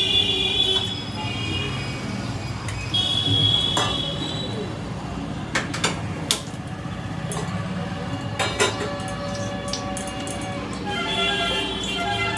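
Steady low hum of street traffic with a vehicle horn tooting several times. A few sharp clicks and knocks come around the middle as a gas-stove burner is worked.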